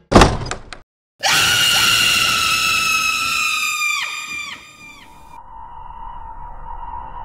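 A sudden loud hit, then a woman's high-pitched scream held for about three seconds that breaks off in a few quick downward drops; a low, steady music drone follows.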